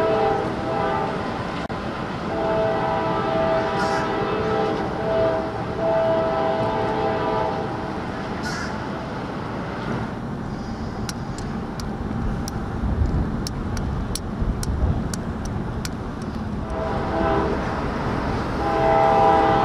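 Diesel locomotive air horn sounding two long blasts, a short one and a long one, the pattern of the grade-crossing signal. Then a quieter stretch of low train rumble with a few sharp clicks, and the horn sounds again near the end.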